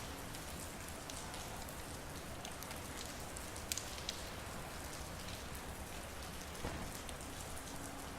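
Steady rain with individual drops ticking on hard surfaces, a few sharper drips standing out about halfway through.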